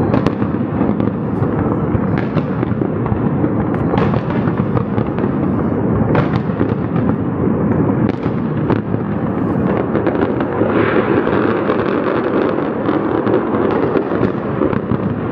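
Aerial fireworks going off in a dense, continuous barrage of shell bursts and crackle, with a few sharp loud reports standing out, about one every two seconds through the first half.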